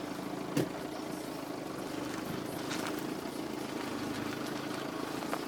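Volkswagen Passat 2.0 TDI diesel engine running steadily with a low hum, with a single short knock about half a second in.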